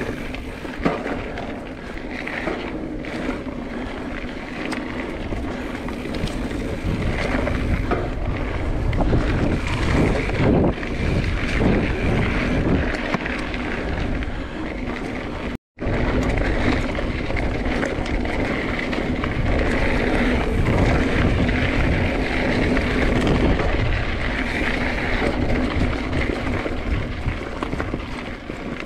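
Mountain bike riding over a dirt singletrack: a steady rush of tyres rolling on the trail, mixed with wind buffeting the microphone, with a split-second dropout about halfway through.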